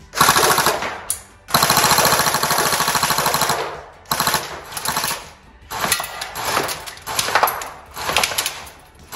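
Tokyo Marui next-generation AKS74U electric airsoft gun firing on full auto in rapid mechanical clatter. There is a short burst, then a long burst of about two seconds, then several shorter bursts, each under a second or so.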